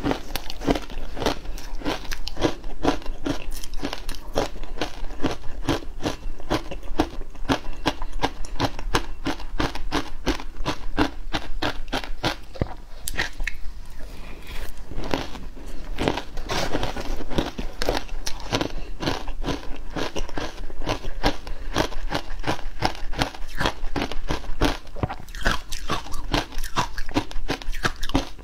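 Frozen matcha ice being bitten and chewed, with rapid crunching of several crunches a second and a brief let-up about halfway through.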